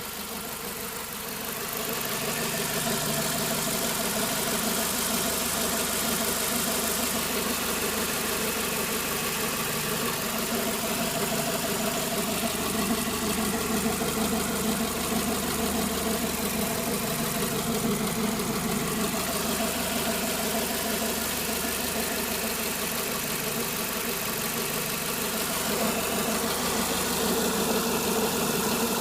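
Renault Espace IV 2.0 turbo (165 hp) engine running steadily, louder after about a second and a half. It carries a noise that the owner suspects comes from the water pump or an over-tight timing belt.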